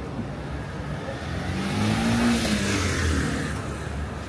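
A car driving past close by, its engine and tyre noise swelling to a peak about two seconds in and then fading away.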